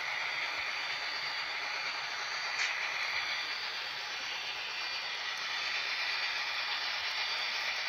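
HO scale model train, an Athearn Genesis SD45-2 diesel locomotive pulling freight cars, running slowly along the track: a steady hissing whir with a faint high whine, and a single tick about two and a half seconds in.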